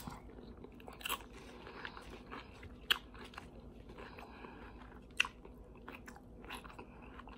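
Close-miked chewing of a mouthful of tortilla chips with ground beef and peppers, with a few sharp crunches and mouth clicks standing out over quiet steady chewing.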